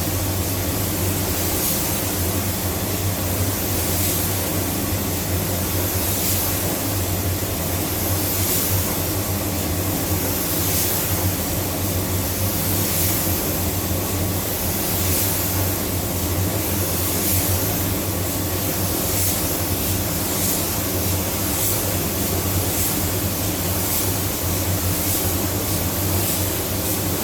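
Automotive paint spray gun hissing as the first coat of candy red tint is sprayed on in passes, the hiss swelling about every two seconds. A steady low hum runs underneath.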